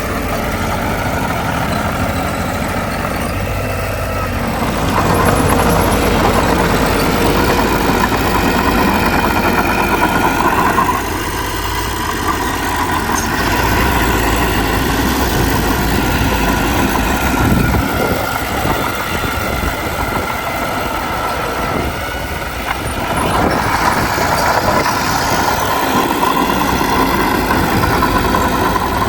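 Heavy diesel earthmoving machinery running, the engine working harder and louder for two stretches, from about four seconds to eleven seconds in and again near the end.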